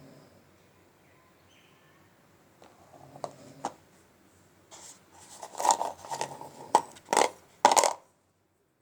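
Dry multani mitti (fuller's earth clay) being bitten and crunched close to the microphone: a few crisp cracks about three seconds in, building into a dense run of loud crunches that cuts off abruptly near the end.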